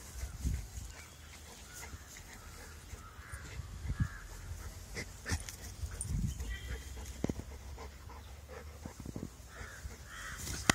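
A golden retriever snuffling and moving about close to the microphone, with scattered knocks and rustles.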